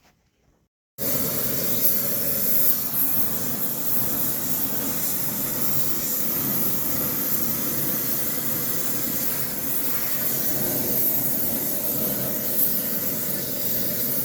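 Gas torch running with a steady hiss, heating a new flywheel ring gear so it expands and can be shrink-fitted onto the flywheel. The hiss starts abruptly about a second in.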